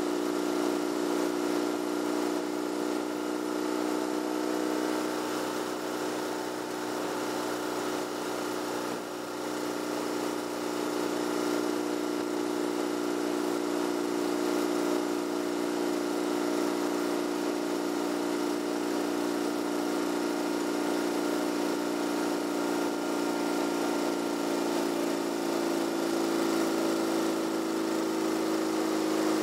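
Vehicle engine running steadily while driving, a constant hum with road noise; its pitch dips slightly near the end.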